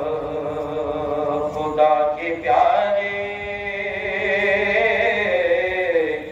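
A man's voice chanting a devotional Islamic salutation to the Prophet in long, drawn-out held notes that slide between pitches, amplified through loudspeakers.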